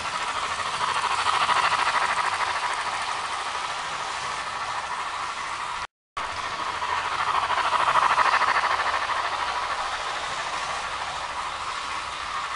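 OO-gauge Bachmann model of the Peppercorn A1 steam locomotive 'Tornado' with a DCC sound decoder running with its train of coaches: the decoder's steam exhaust sound plays through the model's small speaker over the wheels running on the track. It grows louder and fades twice, with a brief break about halfway.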